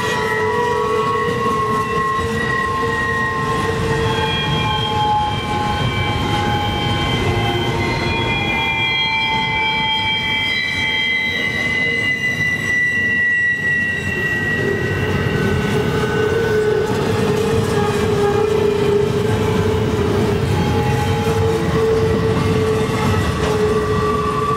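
Wheels of a CN double-stack container train squealing against the rails as it rolls around a curve over a steel bridge: several high, ringing tones that drift slowly in pitch and come and go over a steady low rumble of the passing cars.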